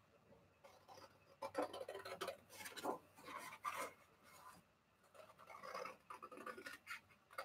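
Faint, irregular rustling and scraping of a printed paper sheet being handled and turned.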